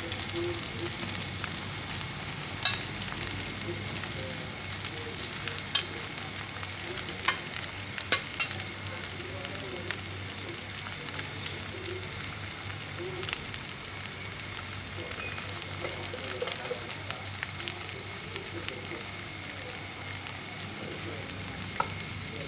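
Onions and sliced okra sizzling steadily in a little oil in an aluminium pot while a steel ladle stirs them, with a few sharp clinks of the ladle against the pot, the loudest about three seconds in and several more a few seconds later.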